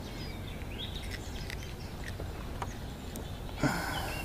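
Quiet outdoor ambience: a low steady background rumble with faint bird chirps, a few light clicks, and a short rustle near the end.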